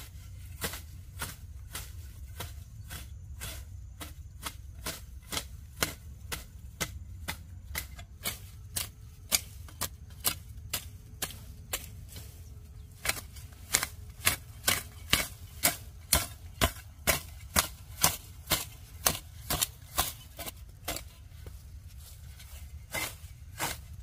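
Repeated sharp strikes, about two a second, louder and more regular from about halfway through, over a low steady rumble.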